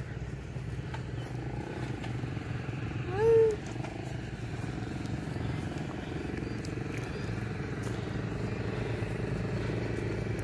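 Steady low drone of a running engine, with one short call about three seconds in that rises and then falls in pitch.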